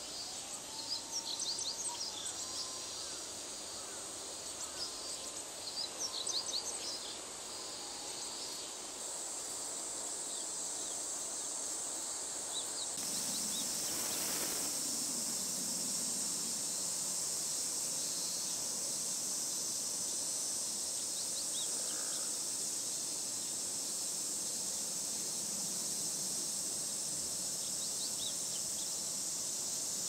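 A steady high-pitched insect chorus, growing louder about halfway through, with short high bird chirps scattered through the first few seconds.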